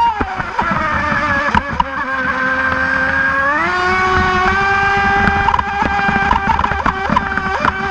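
Brushless electric motor of a Hobbyking Ariane2 mono-hull RC racing boat, a high whine with many overtones. It drops in pitch at the start, holds steady, then rises about three and a half seconds in and holds at the higher speed, with scattered short knocks over it.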